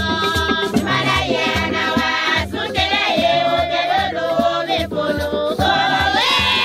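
Church choir singing in parts over a steady low beat.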